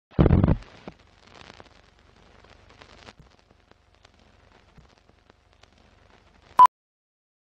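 Film-leader countdown sound effects: a short low thump at the start, then faint clicking and crackling like old film running, and a brief high beep about six and a half seconds in.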